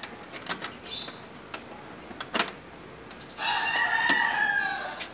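A rooster crows once, a single call of about a second and a half beginning past the middle. Scattered light clicks and taps run throughout.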